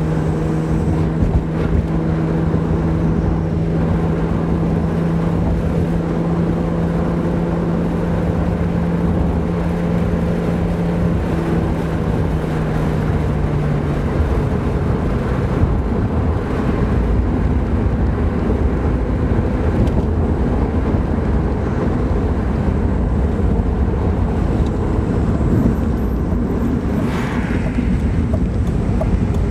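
BMW E36 M3's straight-six engine and road noise inside the cabin while driving. A steady engine note holds for about the first half, then drops away, leaving the low rumble of tyres and road.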